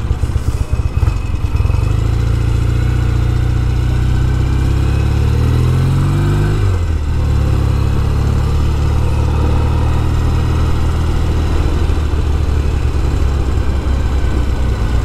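Norton Commando's twin-cylinder engine pulling under way. Its pitch rises for a few seconds, drops sharply about seven seconds in as it changes up a gear, then runs steady.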